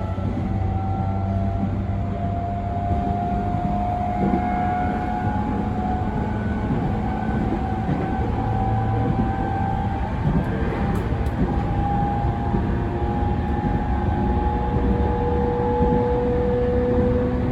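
Running noise inside a JR E231 series 1000 commuter train's motor car at speed: a steady low rumble of wheels and traction gear with several drawn-out tones from the inverter and traction motors. This unrenovated car's low hum is stronger than usual for the type.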